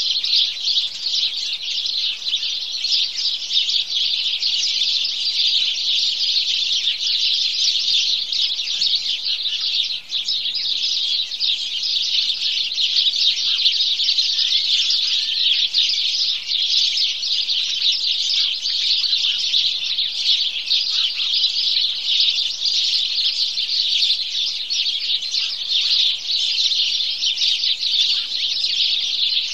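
A flock of house sparrows chirping continuously: many overlapping chirps merge into a steady chatter.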